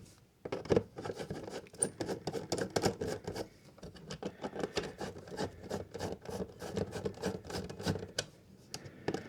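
Irregular scratching, rubbing and small clicks of an old plastic wall socket and its wiring being handled as it is eased out of its drywall back box.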